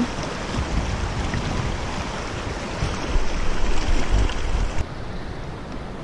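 River water rushing between granite boulders, with wind buffeting the microphone in gusts. Near the end the rushing hiss drops away, leaving mostly low wind rumble.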